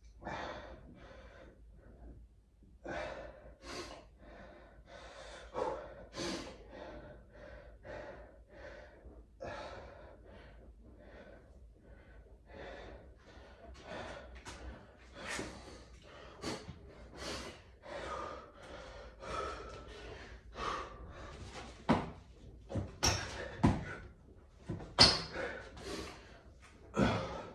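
A man breathing hard and gasping, with deep breaths in and out about once a second: winded from long sets of burpees and squats. Near the end come a few sharper, louder thumps and breaths as he starts moving again.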